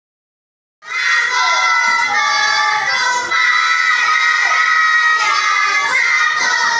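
Many children's voices shouting together, beginning abruptly about a second in after dead silence and holding loud and high-pitched throughout.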